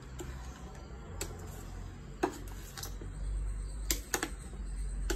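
A handful of light, irregular clicks and taps as a spatula knocks against a plastic mixing bowl while fruit salad is stirred, over a low rumble.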